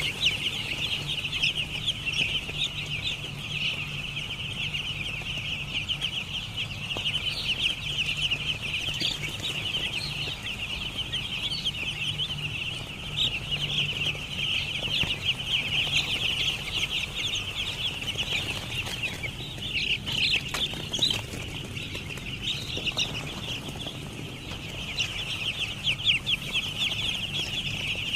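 A flock of poultry chicks peeping continuously, many high peeps overlapping into a dense chorus, with a steady low hum underneath.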